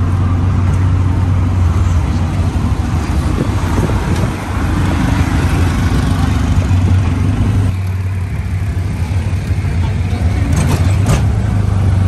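Engine and road noise of a vehicle driving along a street, heard from on board: a steady low engine hum under road and wind rush, the sound changing a little about eight seconds in.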